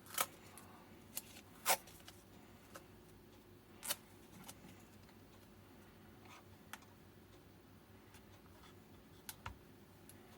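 Scattered light clicks and taps from handling battery-pack parts and wires on a workbench, about nine in all, the sharpest ones in the first two seconds and a close pair near the end.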